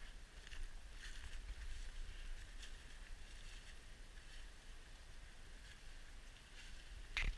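Runners' footsteps and rustling on leaf litter along a woodland path, soft and irregular, over a low rumble on the microphone; a single sharp knock near the end.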